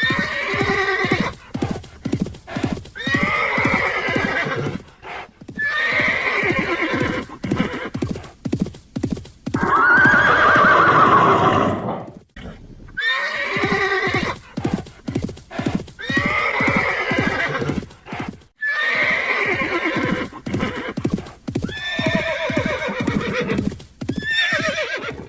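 Horse whinnying again and again, about eight calls, the loudest and longest about ten seconds in, over the quick clip-clop of its hooves.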